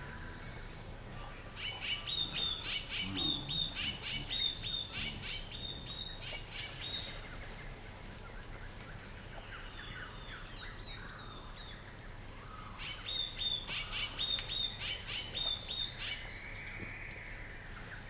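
Small songbirds chirping in two bouts of quick, repeated high notes, each lasting several seconds, with a quieter stretch between them.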